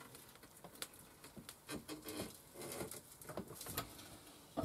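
Homemade sheet metal bender folding a 1.2 mm steel sheet, the upper limit of what it can bend: irregular ticks, scrapes and small clicks of metal under strain as the bending leaf is levered up, with a sharper click near the end.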